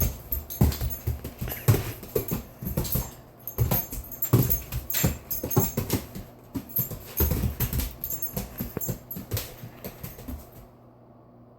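A dog's paws and claws scrabbling and tapping quickly and irregularly on the floor as it chases a light, with a light metallic jingle in between. The scrabbling stops near the end.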